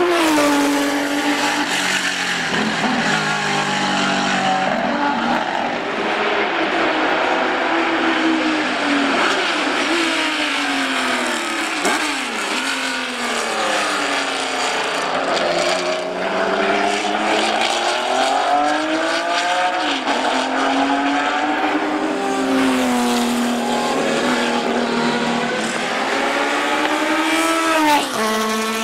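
Ferrari 512 BB LM racing engine, a 4.9-litre flat-12, at race pace. Its pitch climbs through the gears and drops on lifts and downshifts as the car passes.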